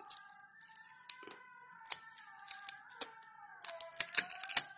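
Clear plastic wrap being peeled off a new smartphone by hand: scattered crackles and crinkles of the film, turning into a dense run of crackling near the end.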